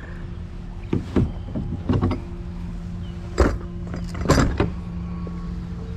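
Several sharp knocks and bumps on a plastic kayak as it is handled and turned, over a steady low hum. The loudest knocks come past the middle, one about three and a half seconds in and a cluster just after four seconds.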